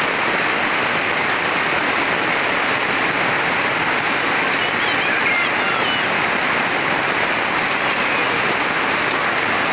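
Heavy rain falling steadily on paving, with runoff pouring from a roof spout and splashing onto the ground, a loud, even hiss that does not let up.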